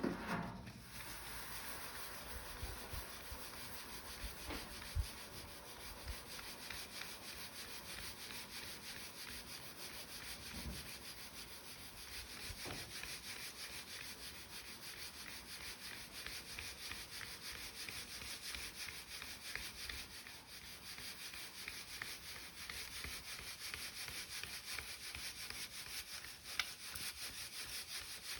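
Steady, dry scratchy rubbing with a fast rustling texture and a few soft knocks, typical of dried pepper being rubbed or crumbled by hand.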